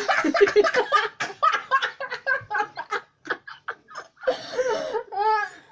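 Two boys laughing hard together in quick, breathy bursts, easing off for about a second past the midpoint before picking up again.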